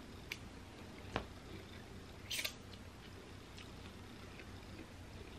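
Quiet mouth sounds of a person licking her fingers after eating: a few sharp lip-smacking clicks and one short sucking hiss about two seconds in.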